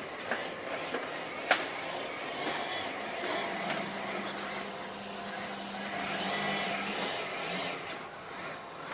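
Trapezoidal roofing-sheet roll forming machine running, a steady mechanical whir as painted steel sheet feeds through its forming rollers, with a sharp click about one and a half seconds in and a low hum joining for a few seconds midway.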